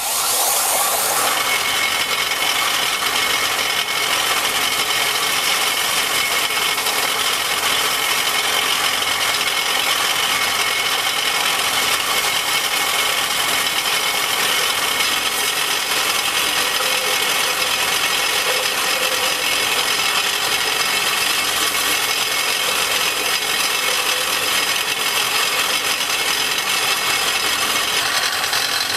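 Benchtop belt-and-disc sander switched on and running steadily, with PVC pipe fittings pressed against the moving abrasive belt to square and smooth their cut ends.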